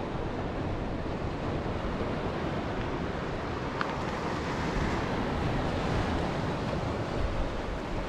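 Waves breaking and washing over a rocky shore, a steady surf, with wind rumbling on the microphone.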